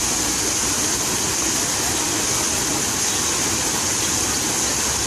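Fountain water splashing and falling without pause, a steady rushing hiss.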